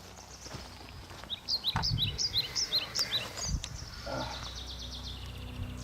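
A bird singing a quick run of about ten short, high chirps over about two seconds, followed by a thin, steady high note, over low outdoor background noise with a couple of dull thumps.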